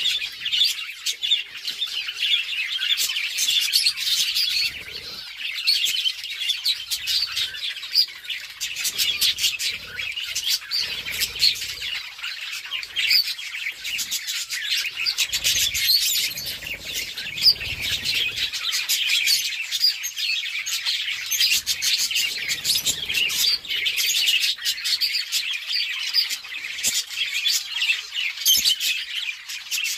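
A flock of budgerigars chirping continuously, many calls overlapping, with frequent short clicks among them.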